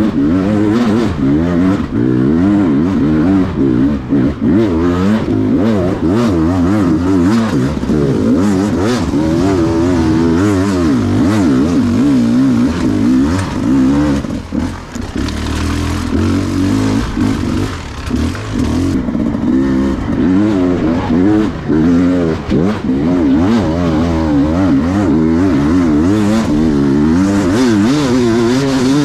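Enduro motorcycle ridden off-road, its engine revving up and down continually with the throttle, with occasional knocks from the bike over rough ground.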